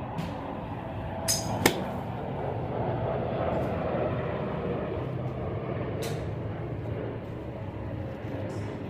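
A golf iron swishes through the downswing and strikes the ball off a driving-range mat with one sharp click about a second and a half in. A fainter click follows about six seconds in.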